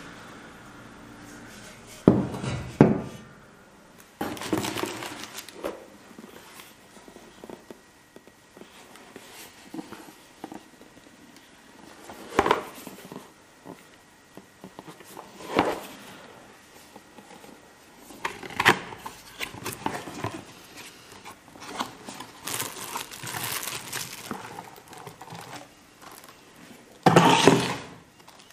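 Unpacking by hand: cardboard box and plastic wrapping rustling and crinkling, with scattered knocks and thumps as parts are handled and set down. The loudest bursts come about two seconds in and near the end.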